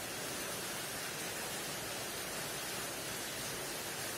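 Steady, even hiss of background noise, with no distinct sound events.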